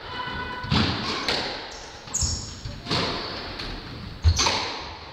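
Squash rally: sharp smacks of racquets hitting the ball and the ball hitting the court walls, about five impacts, the loudest near the end. Shoes squeak briefly on the wooden court floor near the start and about two seconds in.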